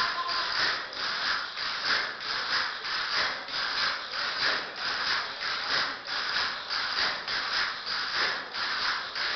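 A group of dancers' castanets clattering together in a steady rhythm of repeated rattling strokes.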